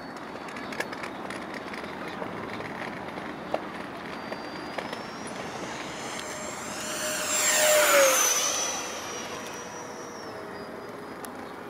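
FMS Yak 130 radio-controlled jet's 70 mm electric ducted fan whining on a fast low pass. The whine builds to its loudest about two-thirds of the way in, drops in pitch as the jet goes by, and then fades.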